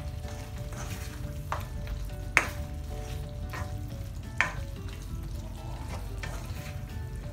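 Chicken and green capsicum in a thick soy-sauce gravy sizzling in a wok while a spatula stirs it, knocking and scraping against the pan every second or so; the loudest knock comes about two and a half seconds in.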